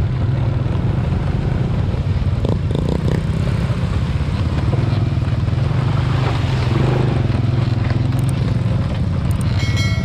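Motorcycle engine running steadily while riding a muddy dirt track, heard from the camera rider's own bike, with a burst of splashing as the wheels cross a shallow stream past the middle.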